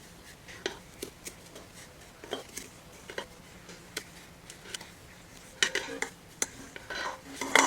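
A scoop tapping and scraping against a container as dry powder is moved into it. Scattered light clicks give way to two longer, louder stretches of scraping and shaking, one past the middle and one near the end.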